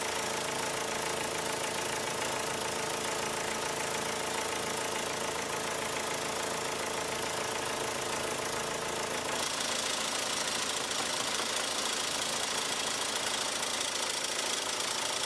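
Turbocharged 1.8-litre four-cylinder engine of a 2002 VW Jetta 1.8T idling with an intermittent clacking rattle, which picks up about nine seconds in. The rattle sounds like a loose bracket flopping around; its cause is not yet found.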